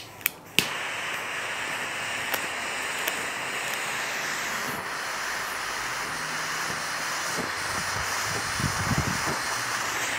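A cigar lighter clicked three times quickly, then its flame hissing steadily as it lights the cigar, with a few puffs on the cigar near the end.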